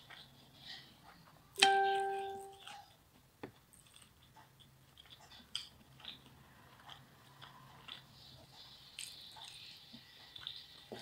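Close-up eating sounds: chewing and soft mouth noises, with small clicks as fingers work food on a ceramic plate. About a second and a half in, a single loud ringing ding sounds and fades away over about a second.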